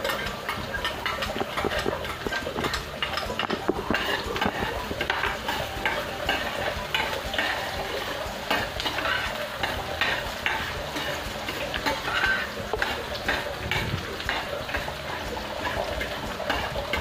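Chopped onion and ginger frying in oil in a stainless-steel pan, sizzling steadily, while a spatula stirs and scrapes against the pan with frequent small clicks and taps.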